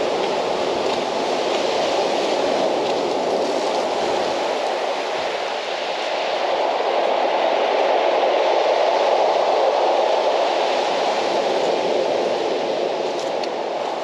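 Steady roar of rough sea surf along the shore, mixed with wind, swelling a little in the second half.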